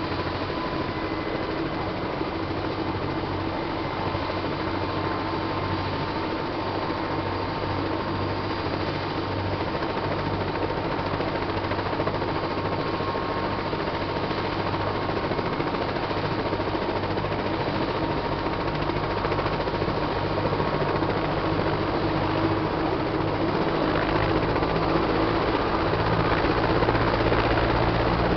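Eurocopter AS350 B2 helicopter starting up: the turbine whines steadily over the low beat of the main rotor. The sound grows gradually louder, with the rotor's low beat getting stronger in the last few seconds as it spools up.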